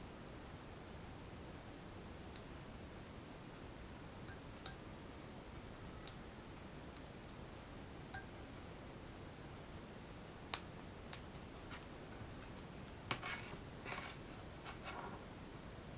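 Sharp, irregular clicks and ticks of metal tweezers on an LED circuit board set on a hot clothes iron, as LEDs are picked off it. They are sparse at first and come thicker near the end, with short scrapes, over a faint steady hiss.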